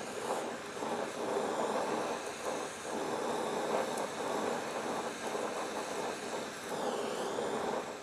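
Gas brazing torch flame rushing steadily as it heats steel and melts brazing rod.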